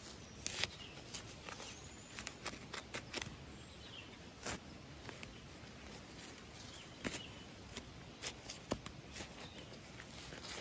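Hand trowel digging into soft, root-laced soil: irregular scraping and crunching strokes, some sharp and some soft, as the dirt is loosened and scooped out.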